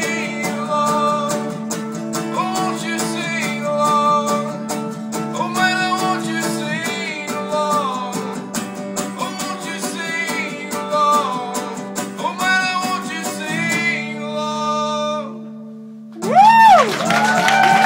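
A man sings a wordless melody over a strummed acoustic guitar, ending a song live. The last chord fades away about fifteen seconds in. Then the audience breaks into loud cheers and applause near the end.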